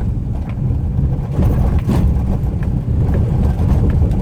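Cabin noise of a Maruti WagonR K-Series driving over rough paver blocks: a steady low road rumble with scattered light knocks and rattles from the front, as if something is loose. The knocking comes from play in the front brake caliper pins.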